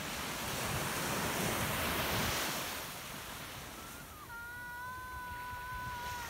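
Small waves washing onto a sandy shore, with wind on the microphone. About four seconds in, a steady high tone starts and holds, alongside the surf.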